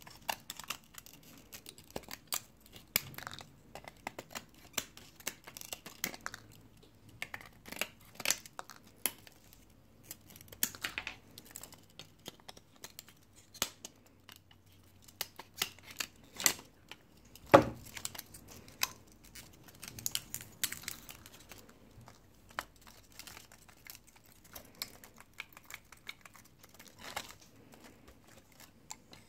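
Rebel II HD desktop 3D printer running a fast print at 70 mm/s: a steady stream of irregular clicks and ticks from the moving print head and frame over a faint motor hum, with one louder click about seventeen seconds in.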